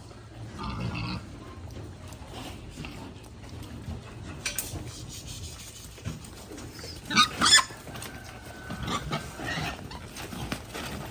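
Pigs grunting at intervals, with two loud short squeals close together about seven seconds in.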